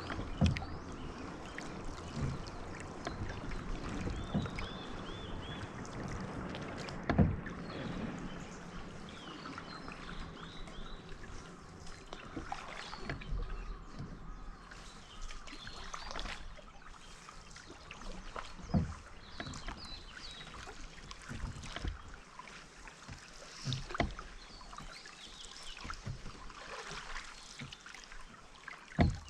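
Canoe being paddled on calm water: the dip and swish of paddle strokes, with a few sharp knocks scattered through, and short bird chirps in the background.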